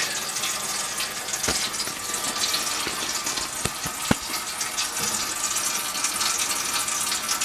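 Kitchen faucet running steadily into the sink, the water draining through the garbage disposal into the newly fitted drain pipes as a leak test of the repair. A few light clicks sound about a second and a half in and again around four seconds.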